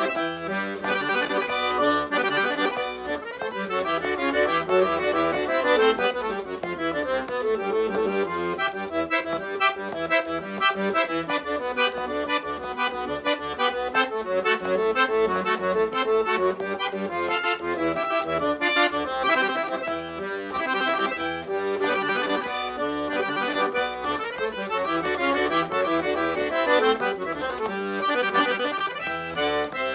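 Accordion playing an instrumental tune in traditional gaúcho style.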